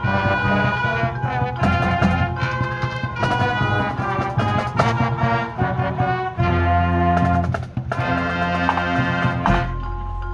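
High school marching band playing: the brass section plays loud held chords in short phrases over drums. About a second before the end the brass cuts off, leaving a low sustained tone.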